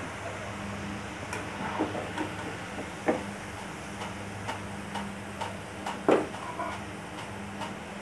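French fries being scooped out of hot frying oil with a metal wire skimmer: scattered light clicks and taps of the skimmer against the pan, the sharpest about 3 and 6 seconds in, over a faint sizzle of the oil and a steady low hum.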